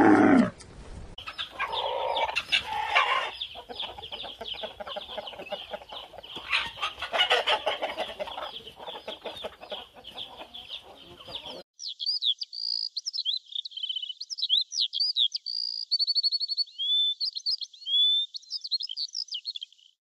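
A flock of chickens, hens and roosters together, clucking busily, with the tail of a camel's loud call at the very start. About twelve seconds in the sound cuts to a flock of house sparrows chirping rapidly.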